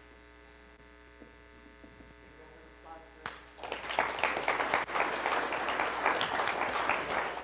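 A faint electrical mains hum, then audience applause that starts about three seconds in and carries on.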